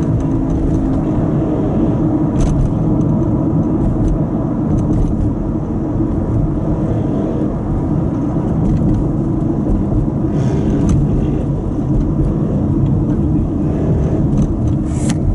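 Steady road and engine noise from inside the cabin of a moving car.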